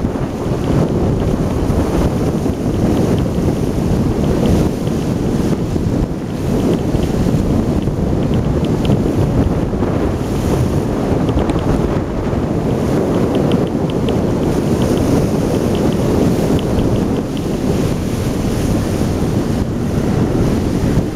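Wind buffeting the camera microphone on a moving boat: a loud, steady rushing that swells and dips in gusts.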